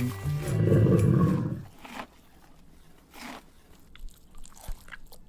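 A low, rough growl lasting about a second and a half, followed by faint scattered sounds.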